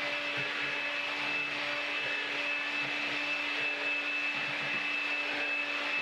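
AEG CX7 Animal (CX7-45ANI) cordless stick vacuum running steadily with its motorized brush head, being drawn over a carpet to suck up spread quartz sand. A steady low hum and a high whine sit over the rush of air.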